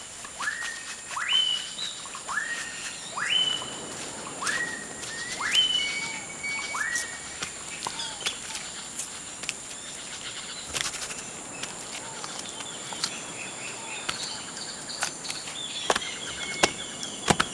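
Tropical forest ambience: a bird repeatedly calls with short rising whistles that level off at two pitches, about one a second for the first seven seconds or so, over a steady high insect drone. A few sharp clicks come near the end.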